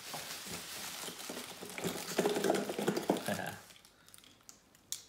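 Bubble wrap and plastic packaging rustling and crackling as it is handled and pulled from a cardboard box. It is busy for about three and a half seconds, then drops to a few faint crinkles with one sharp click near the end.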